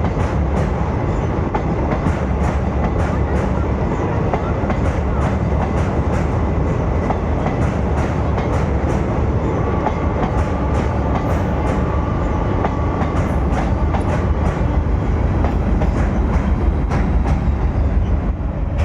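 Indian passenger train running over a bridge: a steady heavy rumble with frequent sharp clicks of the wheels passing over rail joints.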